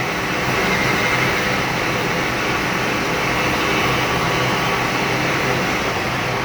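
Col-Met powder coating oven's fans running together (combustion air blower, exhaust fan and circulating fan): a steady rush of air over a low hum. The oven is working, with only its fans running and the gas burner not yet lit.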